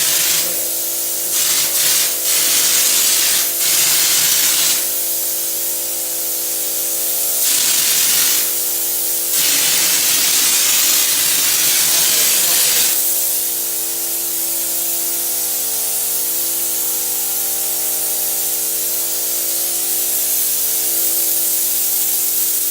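Popcorn ceiling texture hopper gun spraying in a series of on-and-off hissing spells for the first thirteen seconds or so, over a steady machine hum that carries on after the spraying stops.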